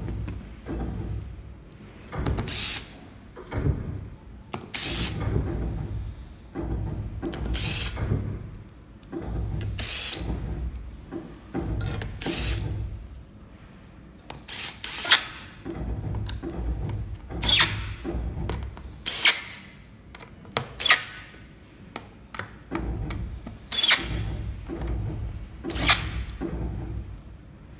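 Cordless drill driving screws into the seat's metal mounting plate, running in short bursts over and over with sharp clicks between runs.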